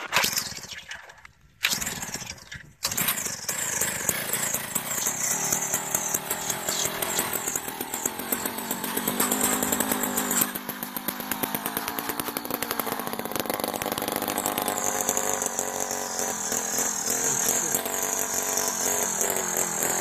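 Jiffy gas-powered ice auger engine pull-started: two short pulls, then it catches about three seconds in and runs steadily at high revs.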